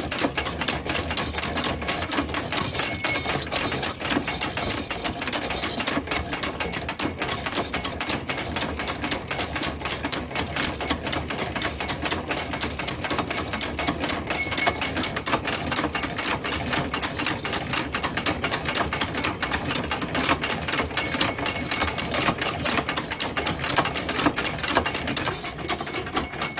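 Early-1900s hand-cranked drilling machine being cranked steadily, its gears and self-feed mechanism making a continuous rapid clatter of clicks as the bit drills into metal.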